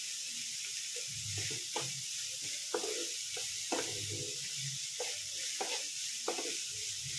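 Sliced onions with green chilli and curry leaves sizzling in hot oil in a pan as they sauté, while a spatula stirs and scrapes through them roughly once a second.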